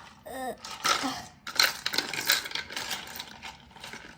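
A metal spoon clinking and scraping against a jar packed with ice and rock salt, in a run of short, sharp strokes.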